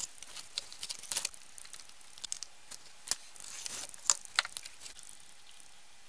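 Scattered small clicks, taps and rustles of wooden and plastic case panels and wiring being handled and fitted together by hand.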